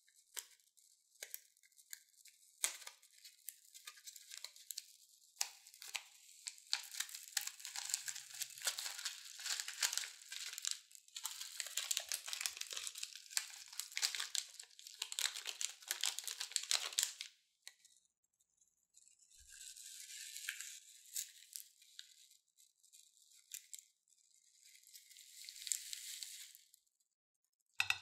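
Tiny foam beads streaming out of a snipped plastic piping bag onto slime: a dense crackle of light clicks with plastic bag crinkling, stopping about two thirds of the way through. Two shorter bursts of crinkling follow near the end.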